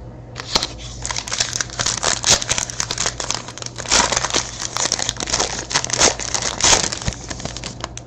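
A trading card pack's wrapper being torn open and crinkled by hand, a dense run of irregular crackles.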